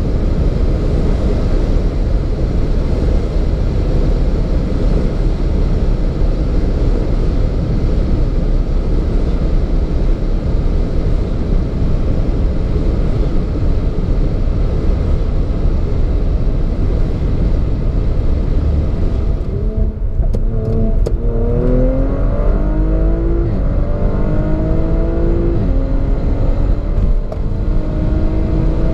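Inside the cabin of an MTM-tuned Audi RS5 with a 2.9-litre twin-turbo V6, running flat out above 300 km/h: a steady, dense roar of wind, tyres and engine. About two-thirds of the way through it breaks off, and the V6 is heard accelerating hard, its pitch climbing and dropping back at each upshift.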